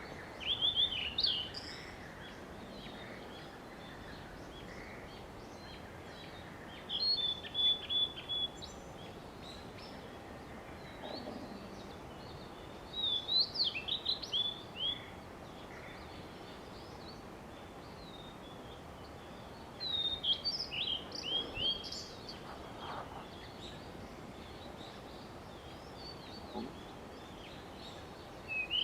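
Blue-and-white flycatcher singing: short phrases of quick, steeply rising and falling notes, each a second or two long, repeated about every six or seven seconds, over a steady background hiss.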